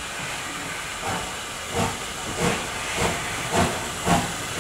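Southern Railway S15 class 4-6-0 No. 825 steam locomotive pulling away slowly: six exhaust beats over steady steam hiss. The beats come a little faster as it picks up speed, and the last is the loudest.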